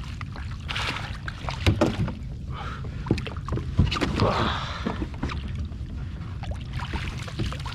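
Wind buffeting an action camera's microphone on a kayak, a steady low rumble, with scattered knocks and handling noises.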